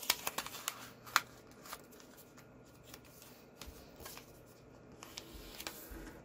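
A sheet of paper being folded and creased by hand into a paper airplane on a tabletop: rustling and crinkling with sharp crackles, busiest in the first couple of seconds and loudest just over a second in, then softer rustling as the folds are pressed flat.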